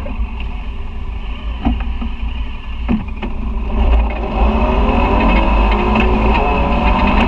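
Side-by-side UTV heard from on board, its engine running at low speed with a couple of sharp knocks and rattles over bumps, then accelerating about four seconds in with the engine pitch rising.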